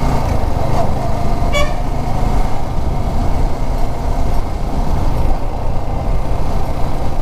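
Yamaha R15 V4 motorcycle on the move, its engine and the wind making a steady low rumble. A short vehicle horn toot sounds about a second and a half in.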